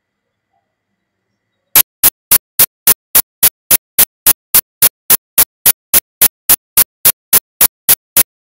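A rapid run of sharp, identical clicks, evenly spaced at about three and a half a second, starting about two seconds in; some two dozen in all.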